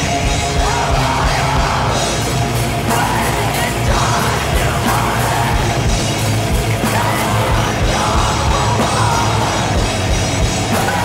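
Black metal demo recording: the full band comes in abruptly at the start with a dense wall of distorted guitars and drums under harsh yelled vocals.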